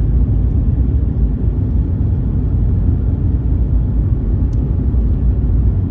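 Steady low rumble of a vehicle driving at road speed, engine and road noise heard from the driver's seat.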